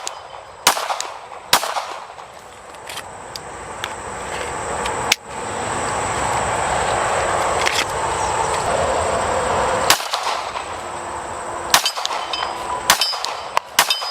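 Scattered gunshots at a shooting range: separate sharp cracks at uneven intervals, several close together near the end, over a steady rushing noise that swells through the middle.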